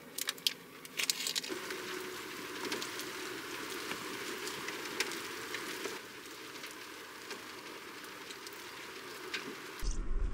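Light rain pattering steadily, many small drops ticking. Near the end it gives way to the low rumble of a vehicle engine.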